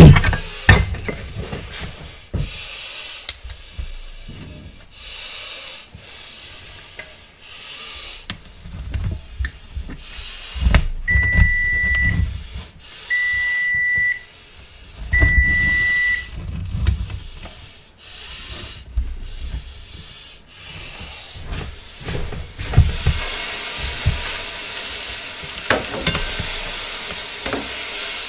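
Scattered knocks and clatter of kitchen work, then three electronic beeps, each about a second long and a second apart. About 23 seconds in, venison steaks go into the hot stainless pan and sizzle steadily.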